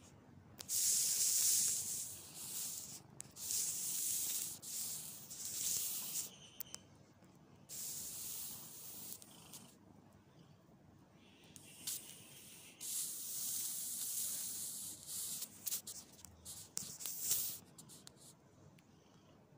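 Fur rustling as a hand strokes a long-haired cat, in repeated hissing bursts that each last from about a second to several seconds, with quieter gaps between.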